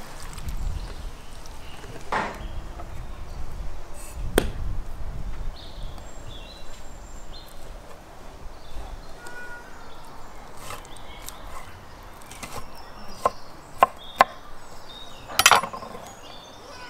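Knife cutting raw meat on an end-grain wooden cutting board: scattered sharp knocks of the blade on the wood, a quick run of three past the middle and the loudest near the end.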